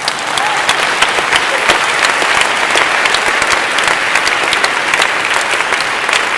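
An audience in a large hall applauding loudly, many hands clapping at once. It swells up just as it begins and carries on steadily throughout.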